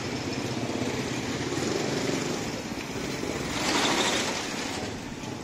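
Street traffic of small motorcycle engines from passing motorcycle tricycles and motorbikes, running steadily, with one vehicle passing close and louder about four seconds in.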